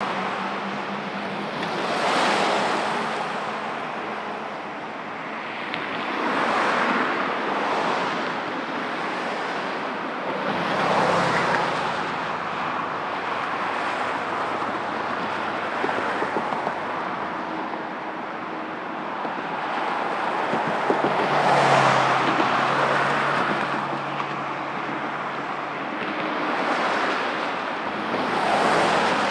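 Distant jet noise from an Airbus A330-243's Rolls-Royce Trent 700 engines on the runway for takeoff: a steady rushing noise that swells and fades every few seconds, with faint low hums underneath.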